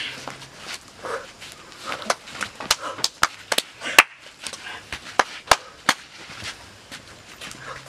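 A run of sharp smacks from hand strikes in a staged barehanded fight, about a dozen crowded between two and six seconds in, the loudest about four seconds in, with voices underneath.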